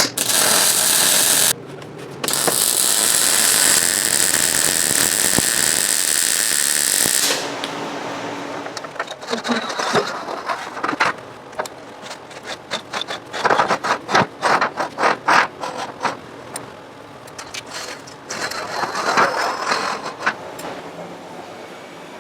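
Welding arc running in two stretches, a short one and one of about five seconds, each a steady loud hiss and crackle. It is followed by a long run of irregular metallic clicks, scrapes and knocks as steel is handled and worked.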